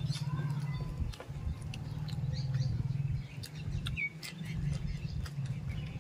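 Close eating sounds of a man eating fried fish and rice by hand: chewing and lip smacking with many short wet clicks, over a low steady hum. A bird chirps a few times.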